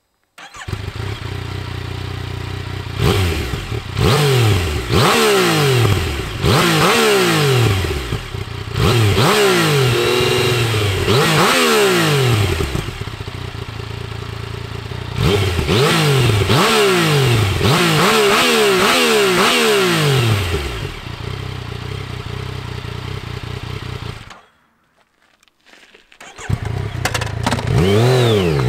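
Yamaha XSR 900's three-cylinder engine, through its stock exhaust, starting and then idling between two sets of quick throttle blips, about a dozen rising-and-falling revs in all. After a short silent gap near the end, it revs up as the bike pulls away.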